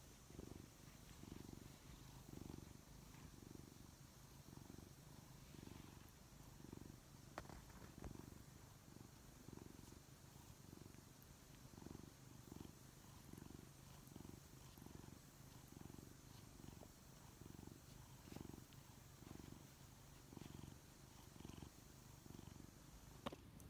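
Ginger tabby cat purring close up, a soft, low, steady rumble that swells and eases about twice a second with its breathing, the contented purr of a cat having its head massaged.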